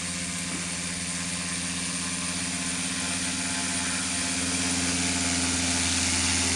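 Quadcopter brushless (BLDC) motors and propellers driving a fibreglass canoe as an air-propeller boat, running at a steady speed: a steady hum with an airy whir, growing gradually louder as the boat comes closer.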